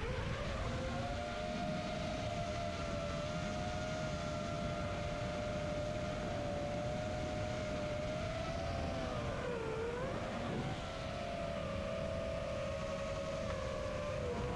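Four brushless motors and 5-inch props of an Armattan Chameleon Ti FPV quadcopter in flight, a steady whine of several close tones at cruising throttle. The pitch dips briefly and comes back up about two-thirds of the way through, and again at the end as the throttle changes.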